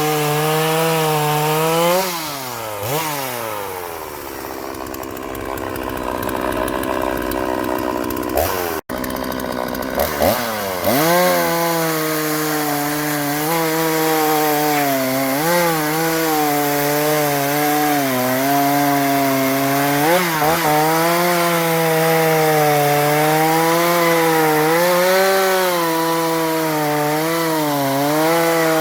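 Oleo-Mac GSH-40 two-stroke chainsaw running at high revs, its pitch dipping and recovering slightly as it cuts wood. About two seconds in the engine falls back to a lower, quieter note, then revs up again to full throttle around ten seconds in.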